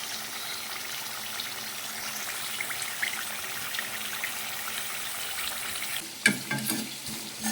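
Pieces of fish frying in hot mustard oil in a pan, a steady sizzle.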